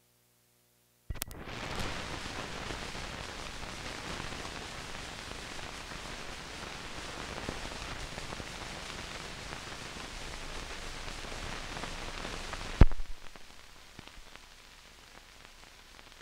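Steady static hiss from the blank soundtrack of an old recording, starting with a click about a second in. A sharp pop comes near the end, after which the hiss is quieter.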